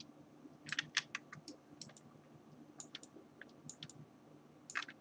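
Quiet, irregular clicks of a computer mouse and keyboard, with a quick run of clicks about a second in and another near the end, over a faint steady low hum.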